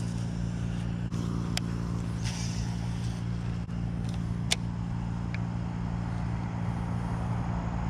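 A steady low motor hum, like an engine or machinery running nearby, with a few sharp clicks and a brief hiss over it.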